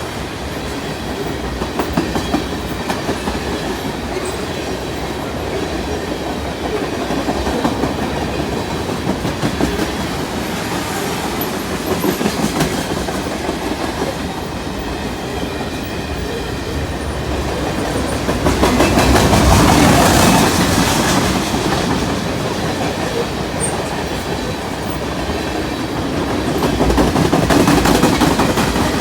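Cars of a CN freight train rolling past, their wheels clicking over rail joints, with the noise swelling louder about two-thirds of the way through and again near the end.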